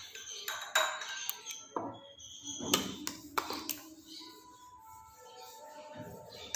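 Background music, with a steel spoon tapping and clinking against drinking glasses several times while thick mango pulp is spooned in.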